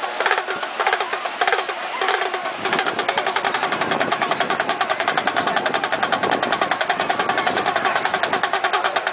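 A motor running with a rapid, even pulse.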